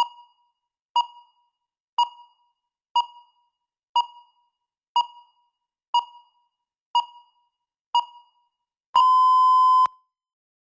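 Countdown timer beeping once a second: nine short, quickly fading beeps, then one longer steady beep of about a second as the timer reaches zero, signalling that the speaking time is up.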